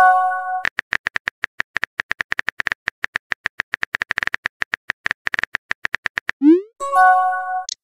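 Simulated phone-keyboard typing: quick, even taps, about nine a second, as a text message is typed. Before the taps and again near the end comes a short electronic chime of several steady notes, and just before the second chime a quick rising swoop, the app's message-sent sound effects.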